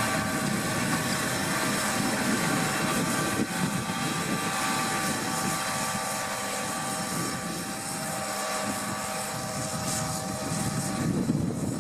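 New Holland T7040 tractor's six-cylinder diesel running steadily under load while pulling a seed drill, with a steady whine over the engine noise. The whine fades somewhat near the end.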